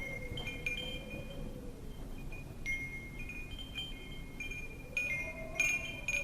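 Wind chimes ringing in irregular, overlapping strikes, with a denser, louder cluster near the end. Under them, a wind whistle slowly falls and then rises in pitch over a low rushing of wind.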